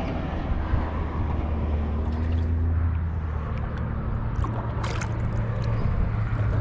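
Steady low engine drone, with water sloshing around a sturgeon held at the surface and a brief splash about five seconds in.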